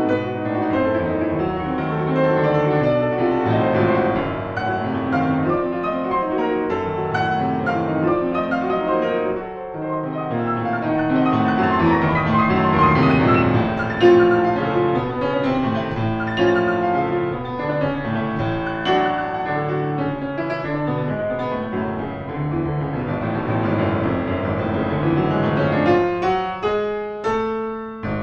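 Solo grand piano playing fast, dense classical music, swelling to its loudest about halfway through. Near the end comes a run of quick repeated chords.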